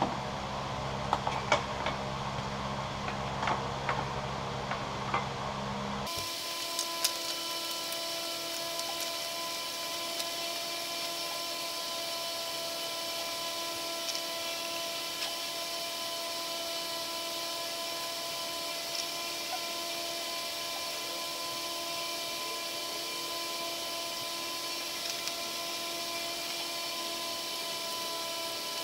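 A few light metallic clicks of hand tools over a steady hum. About six seconds in, the sound changes abruptly to an even, unchanging mechanical whine made of several steady tones, with only an occasional faint click.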